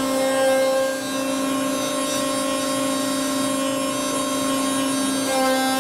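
CNC router spindle running with a wide surfacing cutter, planing the top of an oak plank flat. It makes a steady high whine over the hiss of the cut, and the tone shifts slightly near the end.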